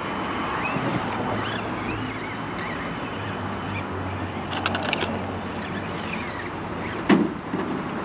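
Axial SCX24 mini RC crawler with a Holmes Hobbies motor, its small electric motor and gears running steadily as it crawls over rock. A sharp knock comes about seven seconds in.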